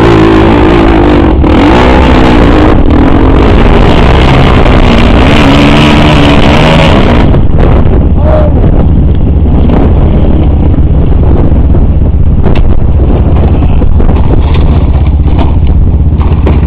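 Suzuki QuadSport Z400 ATV's single-cylinder engine revving hard on a steep dirt hill climb, its pitch rising and falling. About seven seconds in the engine note falls away, leaving a loud low rumble.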